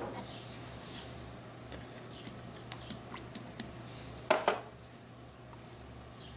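Tapping threads into the steel shotgun barrel for the front sight: scattered light metallic clicks, then two louder knocks about four seconds in, over a steady low hum.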